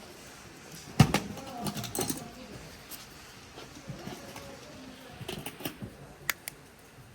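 Scattered sharp clicks and knocks, the loudest about a second in, with faint voices in the background.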